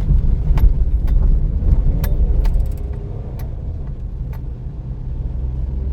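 Low, steady rumble of a car in motion, heard from inside, with scattered sharp knocks and rattles; louder over the first three seconds, then easing off.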